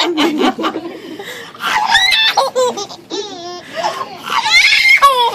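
A baby laughing in several bursts, mixed with adults laughing along.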